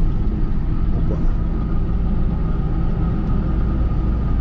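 Steady engine and road rumble inside the cab of a GAZelle Next light truck on the move.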